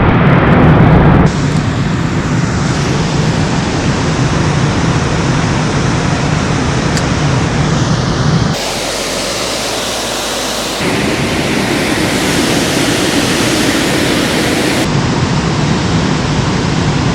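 Steady loud rush of water pouring through and below a dam. Its level and tone change abruptly a few times.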